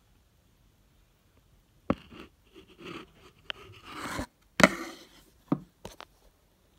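A silver dollar being handled on a hard surface: several sharp taps and clicks with scraping and rustling in between, starting about two seconds in and stopping just after six seconds.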